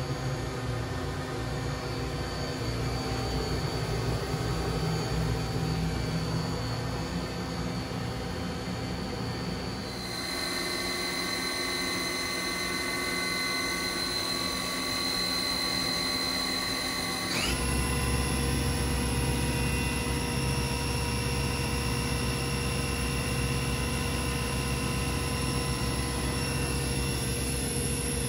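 1999 Viper 950 CNC vertical mill running, its spindle giving a steady high whine. The tone changes about ten seconds in, and a quick upward glide about seventeen seconds in brings a higher, louder whine as the spindle speeds up.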